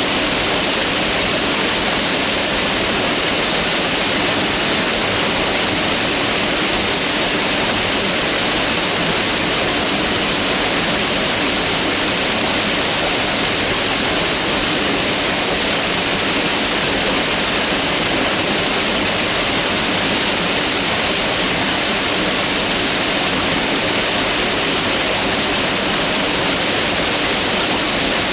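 Mountain river rushing over rocks, a steady full hiss of flowing water without change.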